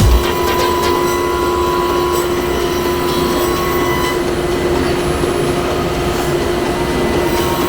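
Woodworking machine running steadily: an even noise with a constant hum.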